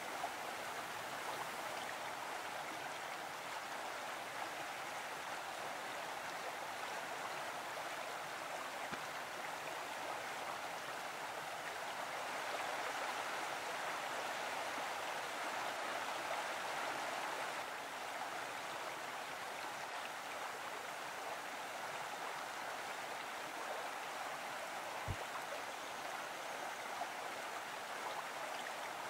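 Mountain stream running over rocks: a steady rush of flowing water, slightly louder for a few seconds in the middle.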